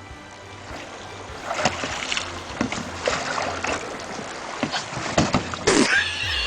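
Water splashing and sloshing with scattered knocks, and a sharper, louder splash near the end.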